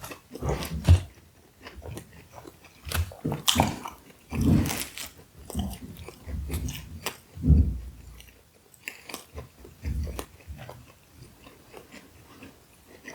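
Close-miked eating sounds: a person biting and chewing a slice of pizza, with irregular wet mouth clicks and a few louder bites.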